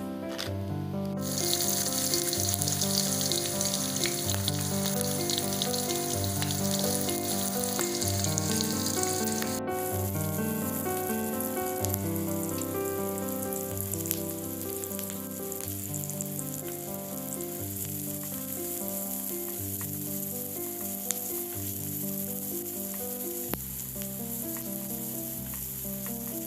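Food frying in hot oil in a pan, a steady sizzle that starts about a second in and is loudest over the next several seconds, with background music playing throughout.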